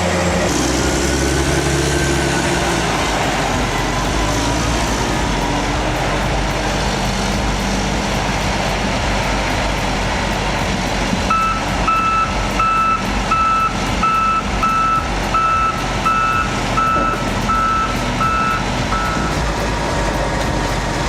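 Hitachi ZW550-6 wheel loader's diesel engine running steadily under work. About halfway through, its reversing alarm starts beeping, roughly one and a half beeps a second, for about eight seconds.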